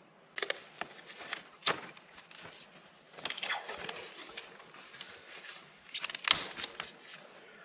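Handling noises: scattered light clicks and knocks with soft rustling, as things are shifted out of the way during plumbing work.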